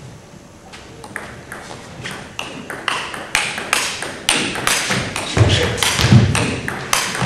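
Table tennis rally: the celluloid ball clicking off bats and table in a quick, even run of about three hits a second, growing louder. A few low thuds come in the second half.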